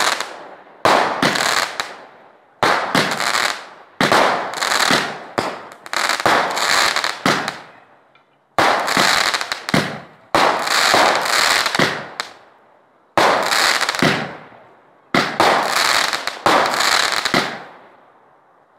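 Consumer fireworks compact (cake) firing shot after shot, more than twenty sharp bangs in clusters, roughly one every half second to a second. Each bang trails off over a second or two, with brief lulls about eight and twelve seconds in.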